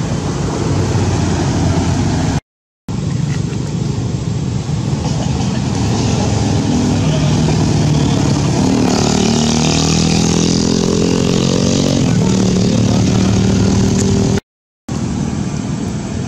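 A motor vehicle engine running nearby over steady outdoor noise, its pitch climbing and holding for several seconds in the middle. The sound cuts out briefly twice.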